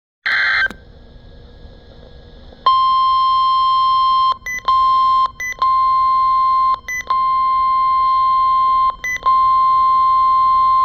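NOAA Weather Radio 1050 Hz warning alarm tone, a loud steady beep, sounded as the weather radio's warning device is tested. A short harsh burst and a few seconds of hiss come first, and the tone breaks off for a moment four times while it sounds.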